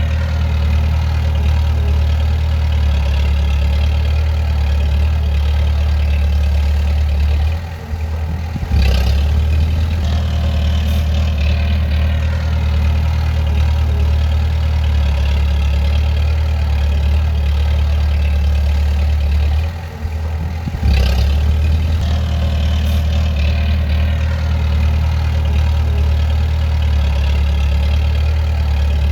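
Bulldozer's diesel engine running steadily with a deep hum. Twice the sound drops for about a second and then comes back a little louder.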